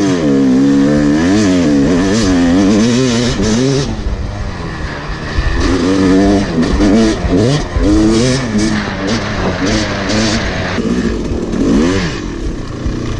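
Yamaha YZ250 two-stroke single-cylinder dirt bike engine, loud and close, revving up and down repeatedly as the rider works the throttle along the trail. Wind rushing over the microphone in the middle stretch.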